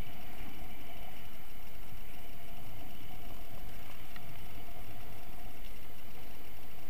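Steady rumble and wind noise from a camera mounted on a moving kite buggy: its wheels rolling over sand and wind buffeting the microphone, even and unbroken.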